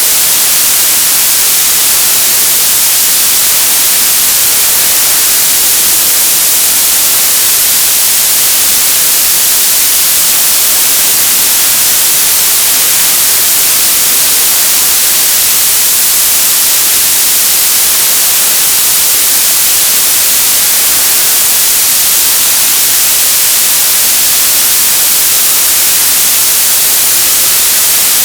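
Television static: loud, steady hiss of an untuned TV, even throughout and heaviest in the treble.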